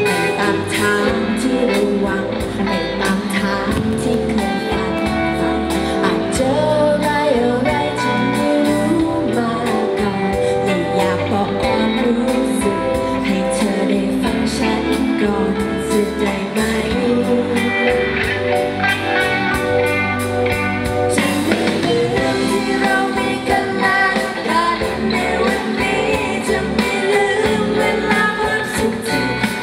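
Live band playing a pop ballad, a singer's voice over guitar and the band, through the stage sound system.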